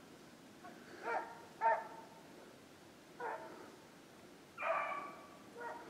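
Beagles baying as they run a rabbit's track: about five separate calls, the second the loudest and the fourth longer and drawn out.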